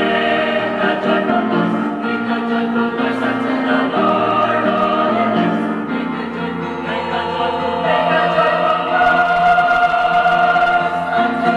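Mixed choir of women's and men's voices singing in harmony, moving through changing chords, then swelling into a long held chord over the last few seconds.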